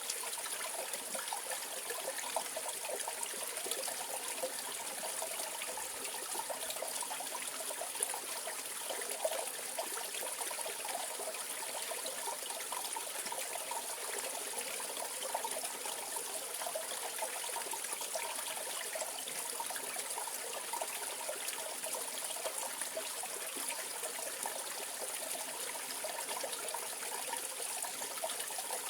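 Mountain valley stream flowing steadily, an even rushing and trickling of water.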